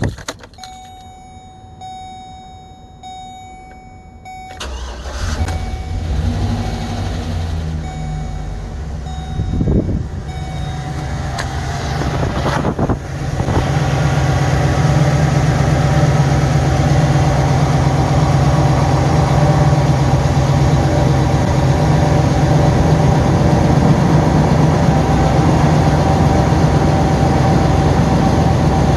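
A 2013 Chevrolet Express 3500's V8 engine is started after an oil change to check for leaks. A steady tone sounds for the first few seconds, then the engine cranks and catches about four and a half seconds in. It runs up unevenly for several seconds and settles into a steady idle.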